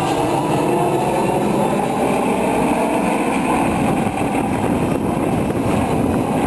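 Formation of Yak-52 aerobatic planes flying over, their nine-cylinder radial engines making a steady drone.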